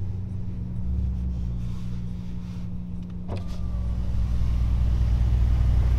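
Ferrari engine heard from inside the cabin, running steadily at low speed with a low drone. A short knock comes about three seconds in, after which the engine sound grows louder.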